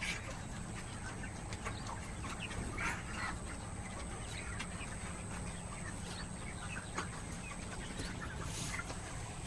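A flock of poultry chicks cheeping continuously, many short overlapping calls, over a steady low hum.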